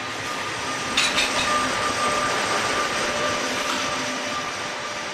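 SNCF BB 17000-class electric locomotive passing close at slow speed: steady running noise with a faint steady tone, a brief clatter about a second in, then slowly fading.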